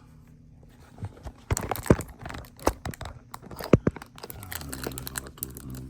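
Crinkling and a few sharp clicks as a small tool and its plastic packaging are handled on a workbench. A low hum sets in about four and a half seconds in.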